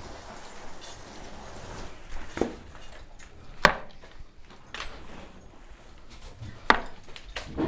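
Cattle hooves knocking on the barn floor: a few separate sharp knocks over a low steady background, the loudest about halfway through and another strong one near the end.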